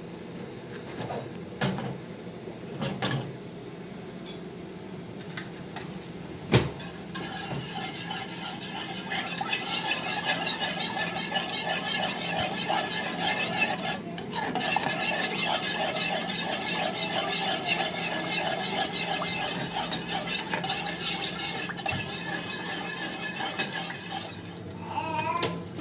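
Metal utensils clinking and knocking against a cooking pot, one sharp knock about six seconds in. Then steady sizzling of food frying in the pot, with stirring, until the end.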